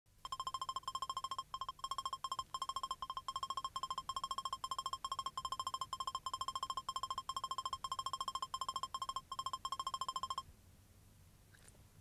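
Electronic beeping: a rapid, even string of short high beeps with a few brief gaps. It cuts off suddenly about ten seconds in.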